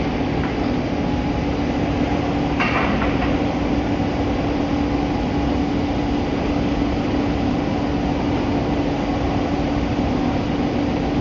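Air source heat pump running under test: a steady fan and compressor drone with a constant low hum. A brief hiss comes about two and a half seconds in.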